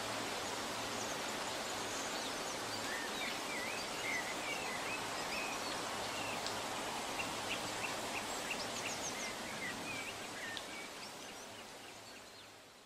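Steady rushing background noise with faint bird chirps and trills scattered through the middle, under a low steady hum, fading out near the end.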